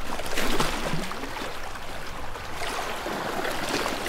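Sea water washing and surging like waves, a rushing noise that swells about half a second in and again just past three seconds.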